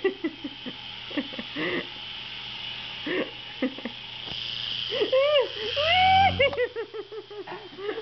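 Air Hogs Havoc Heli toy helicopter's small electric motor and rotors whining steadily, growing louder with a low thrum for about two seconds past the middle as it flies close by. A person's voice calls out in a drawn-out rising sound and then breaks into quick short laughs near the end.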